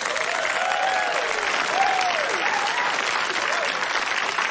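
Studio audience applauding, a steady dense clapping, with a few cheering voices rising and falling over it.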